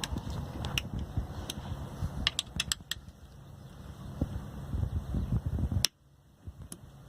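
Hand-turned Allen key tightening a skid plate's mounting screws: scattered sharp metal clicks and clinks over low rubbing and handling noise. The sound cuts off abruptly near the end.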